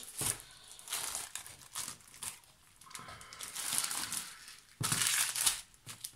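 Small plastic bags of seed beads crinkling as they are handled and shifted about, in irregular bursts that are loudest a little past the middle and again about five seconds in.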